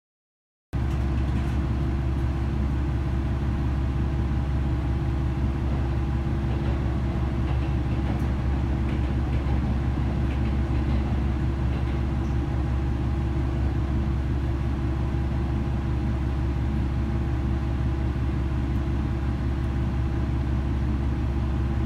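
Steady low hum of a train standing at a station, heard from inside its carriage, with a thin steady whine above it. It starts abruptly under a second in and does not change.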